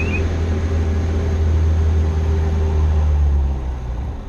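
Robin R2160's four-cylinder Lycoming engine and propeller droning steadily, heard inside the cockpit as the plane pulls up steeply into a stall turn; the drone weakens and drops near the end.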